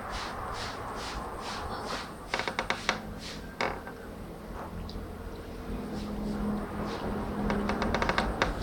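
A cat chewing corn kernels picked up from the floor: quick clusters of small crunching clicks, strongest in the first few seconds and again near the end, over a low steady background rumble.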